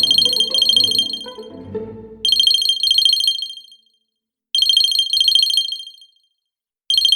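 Smartwatch alarm ringing: shrill, rapidly warbling electronic bursts of about a second and a half, repeating every two seconds or so. Background music underneath fades out in the first couple of seconds.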